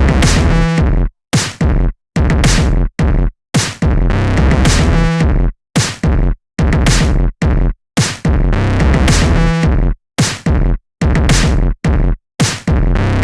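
Electronic beat-tape instrumental: a drum-machine beat with synthesizer, chopped so that the whole mix cuts to silence and snaps back several times a second, the stuttering pattern repeating about every two seconds.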